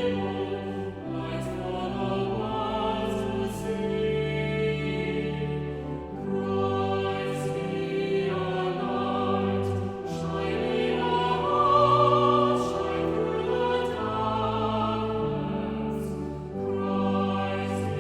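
A church congregation singing a hymn in slow, held notes over instrumental accompaniment.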